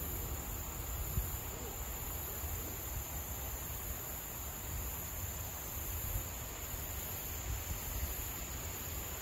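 Insects droning steadily, a thin high whine with a higher hiss that swells and fades about once a second, over a low uneven rumble.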